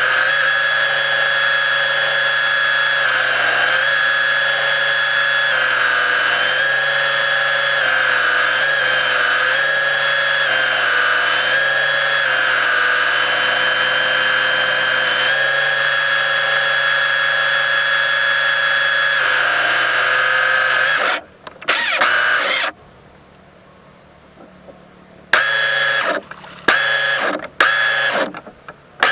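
RC mini boat's motor heard from on board the hull, whining steadily at a near-constant pitch. A little over two-thirds of the way in it cuts off, stays quiet for a few seconds, then starts and stops in several short bursts.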